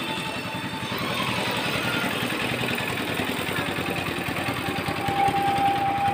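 An engine running steadily with a rapid, even pulse; a thin steady tone joins in about two-thirds of the way through.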